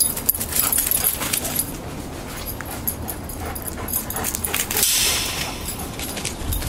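Animal calls over a continuous rustling hiss, with a few short clicks; the hiss swells about five seconds in.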